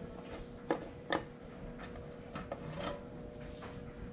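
Handling of a quad engine's clutch side cover and parts: two light knocks about a second in, then soft rubbing and a few small clicks, over a faint steady hum.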